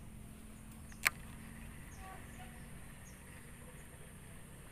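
Faint steady insect buzzing, with a single sharp click about a second in.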